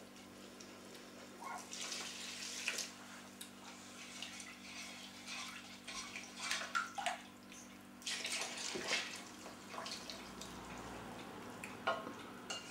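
A milk, margarine and sugar mixture poured from a metal saucepan into a bowl of flour in several splashing stretches, with a spoon clicking against the pan.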